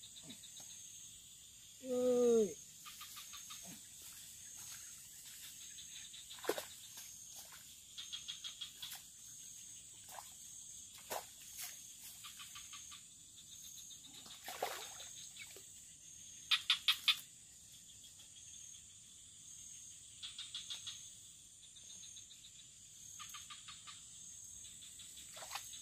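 A steady high-pitched insect drone, broken every few seconds by short trains of rapid clicking calls, about four a second.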